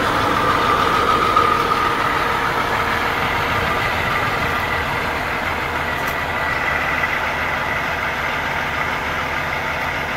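Diesel engine of a Kenworth W900L semi truck idling steadily, with a faint high whine above the engine noise.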